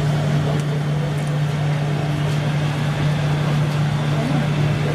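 Remote-control model truck running with a steady, unchanging low engine-like hum.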